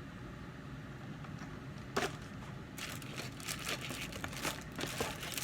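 A single click about two seconds in, then crinkling and clicking of plastic packaging handled as crankbait lures are taken out of their box, over a steady low room hum.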